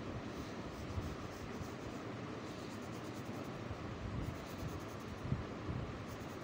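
Graphite 3B drawing pencil scratching on sketchbook paper as strokes are drawn, over a steady hiss, with two light knocks, about a second in and about five seconds in.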